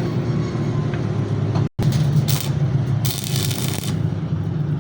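A steady low machine drone, engine-like, with two short bursts of hissing after a sudden cut about a third of the way in.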